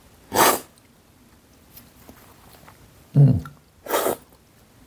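Two loud, sharp slurps of coffee from a cupping spoon, about half a second in and about four seconds in, sucked in hard with air to spray the brew across the palate for tasting. Just before the second slurp comes a short, low voiced sound from the taster.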